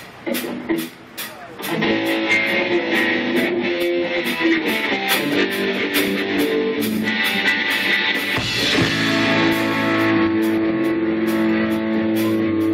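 Live rock band playing amplified electric guitars, bass and drums. After a quieter opening, the full band comes in loudly about two seconds in, and the low end gets heavier a few seconds later.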